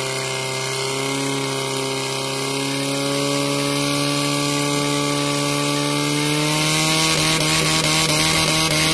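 Portable fire pump's engine running steadily and hard while it pumps water out through the hose lines. It gets a little louder and rougher near the end.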